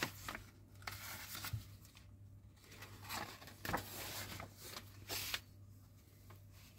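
Glossy paper pages of a magazine rustling and being turned by hand, a series of short soft swishes, over a faint steady low hum.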